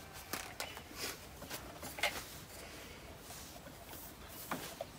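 Faint handling noise of a garden-hose connector and a plastic hose fitting: light rustling with a few small clicks spread through.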